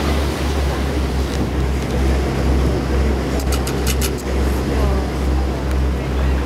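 Steady low drone of a boat's engine over an even hiss of water and air, with a few brief high clicks about halfway through.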